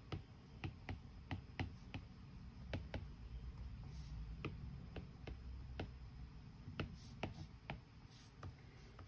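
Apple Pencil tip tapping and clicking on an iPad's glass screen during handwriting: faint, irregular light clicks, a couple a second.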